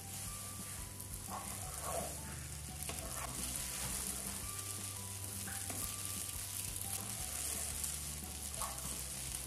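Spaghetti with grated carrot sizzling in a frying pan while it is stirred and tossed with a wooden spoon. A steady frying hiss runs under occasional scrapes and knocks of the spoon against the pan.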